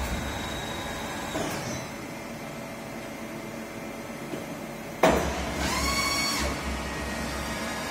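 MAHO MH 1000 S CNC milling machine running on a test run: a steady motor hum, then about five seconds in a sudden louder surge with a whine that bends slightly in pitch for about a second and a half before settling back to the hum.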